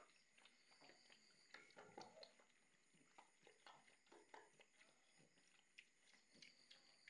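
Two pigs eating liquid feed from a metal bowl: faint, irregular slurps and chewing clicks, several a second.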